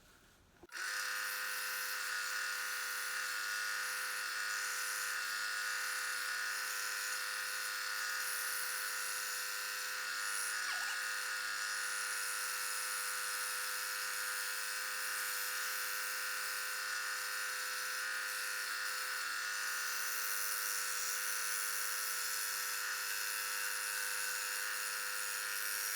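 Scroll saw running steadily, its blade cutting 1/8-inch Baltic birch plywood; it starts up abruptly about a second in with a constant buzz.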